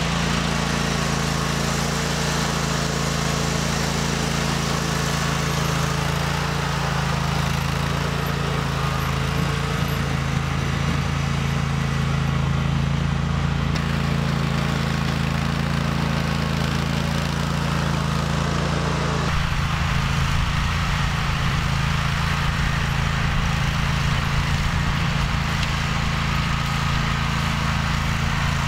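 2005 John Deere G110 lawn tractor's 25-horsepower engine running steadily while the tractor plows snow with its front blade. The low rumble turns rougher about two-thirds of the way in.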